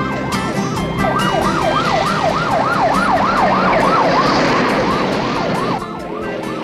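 Police car siren wailing rapidly up and down, about three sweeps a second. It starts about a second in and fades out near the end, over a car engine.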